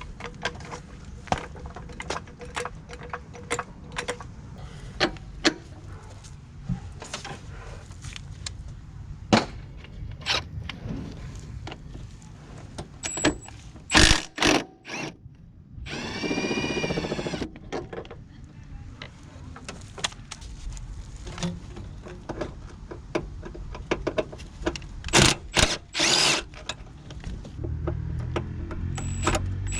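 Mechanic's tools working on the van: scattered clinks and knocks of metal on metal, and a power tool spinning for about a second and a half midway, with a few shorter runs near the end.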